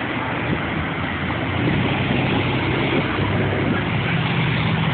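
Car engines running in slow street traffic, with vehicles passing close by: a steady low engine hum over road noise.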